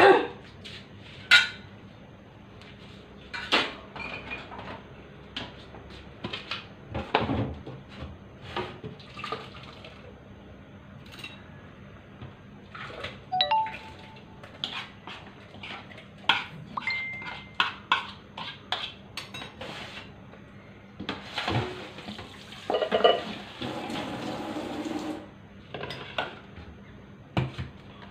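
Kitchen clatter of dishes, pots and utensils: scattered clinks and knocks, some ringing briefly, with a busier stretch of clattering about three quarters of the way through.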